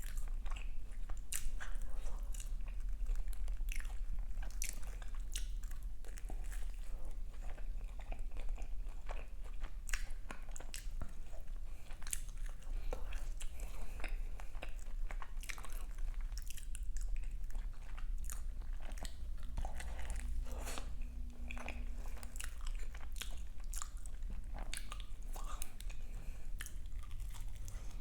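Close-miked eating sounds: repeated crunchy bites and chewing of fried, crumb-coated croquettes and pastries, in many short irregular crunches. A steady low hum runs underneath.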